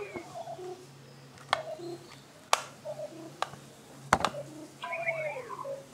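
Short electronic beeps from a Star Wars Force Link toy, with several sharp plastic clicks and taps as the action figure is handled against it.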